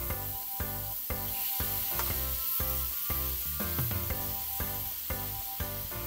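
Mixed mushrooms sizzling in oil in a frying pan as they stir-fry and are turned with tongs, under background music with a steady beat of about four notes a second.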